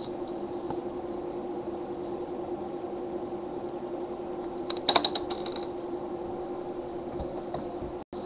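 A short cluster of sharp plastic clicks about five seconds in, from a small device's plastic casing being handled while it is taken apart, over a steady low hum.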